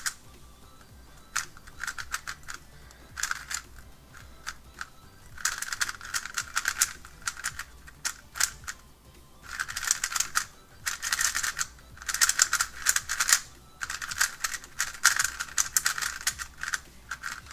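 A magnetic Gans 356 Air UM 3x3 speedcube, boron-treated, being turned by hand in bursts of rapid turns: quick runs of plastic clicking and clacking with short pauses between them. The cube is fresh and unlubricated, so it turns dry.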